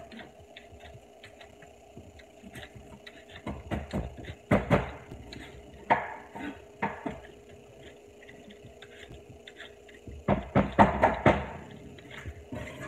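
Kitchen knife working by hand over a bowl, with quick clusters of clicks and scrapes as the blade cuts and knocks against it, three bursts in all. A faint steady hum underneath.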